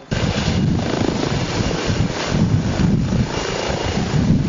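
Emergency medical helicopter's rotor and turbine running at high power as it lifts off, a loud pulsing thrum that sets in abruptly.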